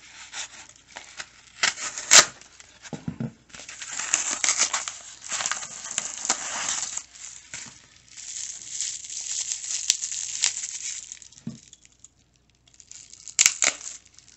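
Padded kraft bubble mailer being slit and torn open and a bubble-wrapped pen pulled out: paper tearing and plastic bubble wrap crinkling in long stretches, with scattered sharp clicks, the loudest about two seconds in.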